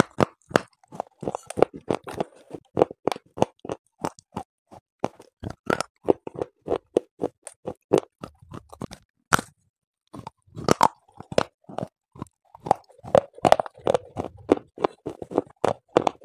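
Pieces of a clay pot being bitten off and chewed: a quick run of sharp crunches, with a brief pause a little past halfway.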